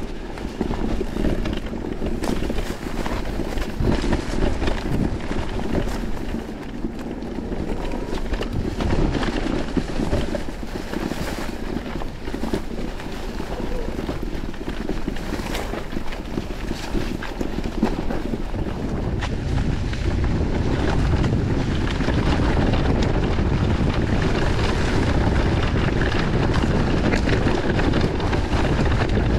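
Ride noise from an electric mountain bike rolling over a grassy, bumpy forest trail: wind on the microphone and the rumble of the tyres, with many small knocks and rattles from the bike over the bumps. It gets louder about two-thirds of the way through.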